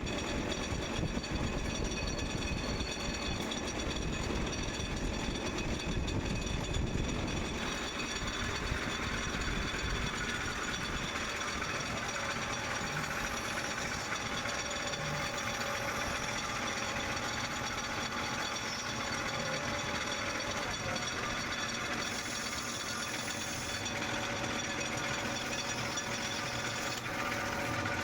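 CNC lathe running while face-grooving brass: a steady machine whine with several held tones over a mechanical rumble. The low rumble eases about seven seconds in while the whine carries on.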